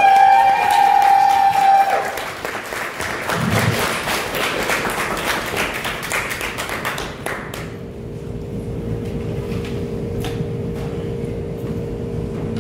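Audience applause with a long drawn-out cheer over the first two seconds; the clapping dies away about seven seconds in, leaving a steady hum and low murmur.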